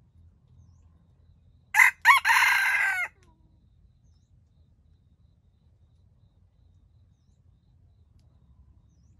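A red junglefowl rooster crows once, about two seconds in: a short clipped first note, a brief break, then a longer note that cuts off after about a second.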